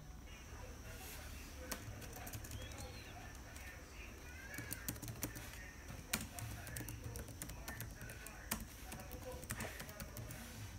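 Typing on a Lenovo laptop keyboard: quiet, irregular key clicks with a few sharper taps, over a steady low hum.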